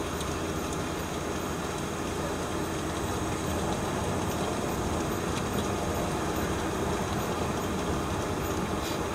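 Steady engine and road noise of a vehicle driving slowly, heard from on board.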